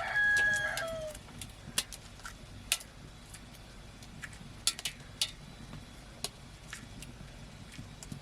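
A rooster crowing, its held call ending about a second in. Scattered sharp clicks and knocks follow.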